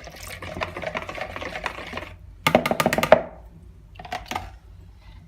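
A utensil clicking quickly against a bowl while a flour-and-water mixture is stirred, then a short burst of sharp clatter about two and a half seconds in and a few lighter taps near four seconds.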